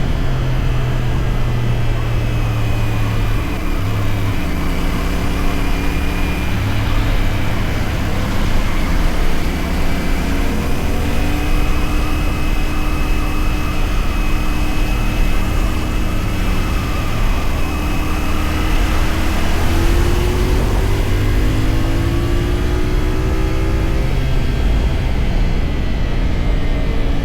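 CFMoto 450SR's parallel-twin engine pulling through the gears on the move: the engine note holds, drops as gears change every few seconds, and climbs again as the throttle opens, with the biggest rises in the second half. A steady low rush runs underneath.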